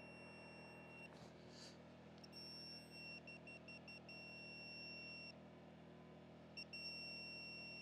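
Non-contact voltage tester beeping with a faint, high, steady tone that sounds in several long spells, cutting out about a second in, stuttering briefly, then coming back near the end. The beep signals that the tester is sensing voltage on the wires it is held against.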